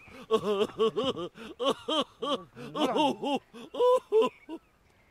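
A person laughing in a run of short, pitched "ha" bursts, about three a second, stopping about four and a half seconds in.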